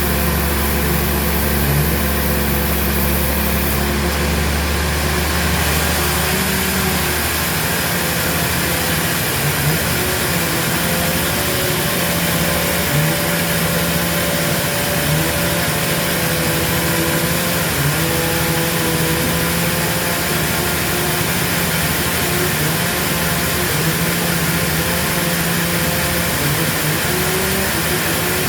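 Sawmill machinery running steadily, with a wavering engine or motor hum under constant machine noise; the low hum changes a few seconds in.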